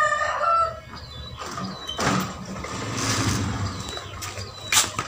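A rooster crowing, its call ending just under a second in, followed by a few seconds of low noise and several sharp clicks near the end.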